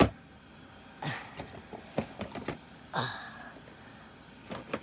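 A sharp knock at the start, then scattered lighter knocks and clicks, typical of someone moving about and handling things while fetching containers of slime.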